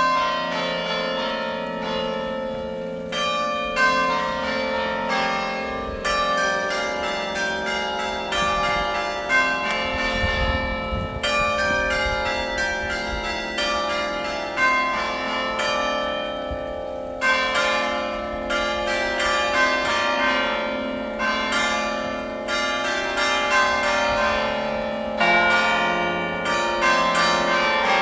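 Church bells ringing: a steady run of strikes on several bells of different pitches, about one or two a second, each note ringing on and overlapping the next.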